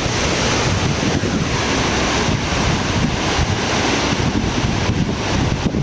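Wind buffeting the microphone over a steady rushing noise, with irregular rumbling gusts in the low end.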